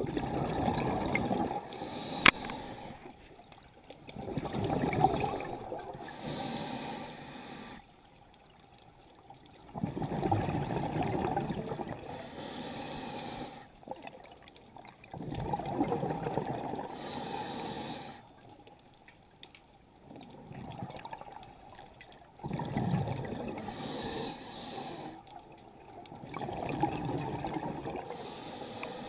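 Scuba diver breathing through a regulator underwater: a slow, repeating cycle of about six breaths, each a two-to-three-second rush of gurgling exhaled bubbles, with quieter gaps between. A sharp click about two seconds in.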